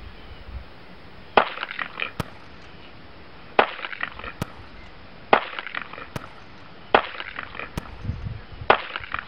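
Sig Sauer Mosquito .22 LR semi-automatic pistol firing five single shots in slow, even succession, about two seconds apart. Each sharp report is followed by a short ringing echo.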